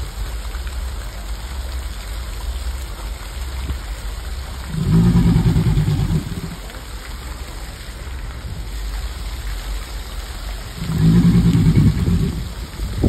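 American alligator bellowing: two deep, guttural bellows about six seconds apart, each lasting about a second and a half, over a low steady rumble.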